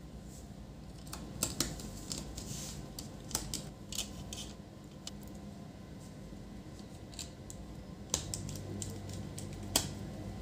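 Scattered light clicks and taps of the HP ProBook 450 G6 laptop's cooling fan and small chassis parts being handled and fitted, with a small screwdriver turning a fan screw near the end. A low steady hum runs underneath.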